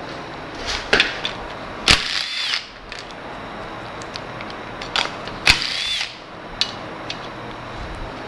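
A power tool undoing the sump bolts on an A-series engine in two short bursts, each rising and falling in pitch, with sharp clunks of the tool and bolts in between.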